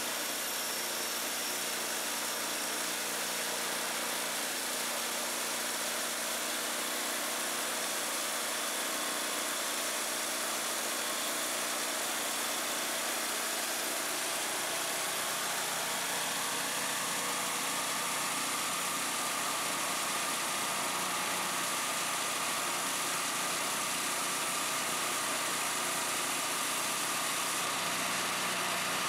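Portable band saw mill running on its small gas engine, the band blade cutting a 2-inch board off a squared log: a steady engine drone with the hiss of the blade in the wood. A thin whine comes in about halfway and rises slightly.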